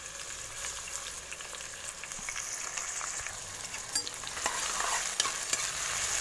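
Sliced onions sizzling in hot oil in a kadai, stirred with a spatula. The scraping clicks of the stirring grow louder and more frequent from about two-thirds of the way in.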